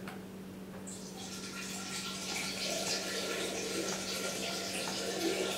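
Water running steadily, starting about a second in, with a faint steady high tone over it.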